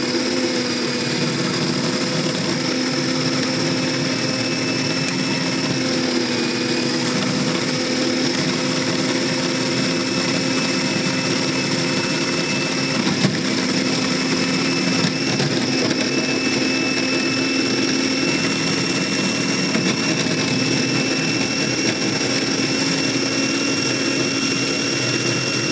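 Arzum Prokit 444 food processor motor running steadily, its blade chopping parsley into a green paste. A constant motor hum with a steady high whine over it.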